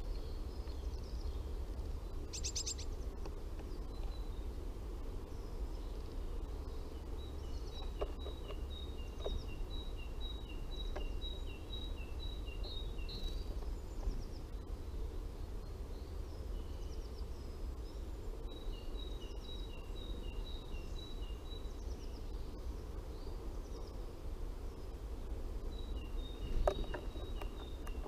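A small songbird singing a repeated two-note phrase, a higher note then a lower one, about twice a second, in three runs of several seconds, over a steady low outdoor rumble. A few faint taps come in between, the loudest near the end.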